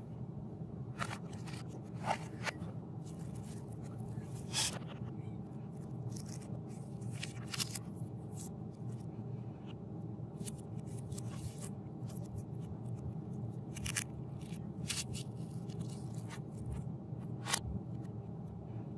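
Cardboard, paper and plastic packaging being handled on a desk: scattered rustles, scrapes and sharp clicks over a steady low hum.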